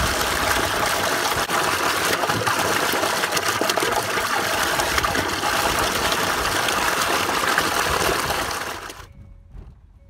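Water gushing from a pipe outlet and splashing into a pond: a loud, steady rush that fades away near the end.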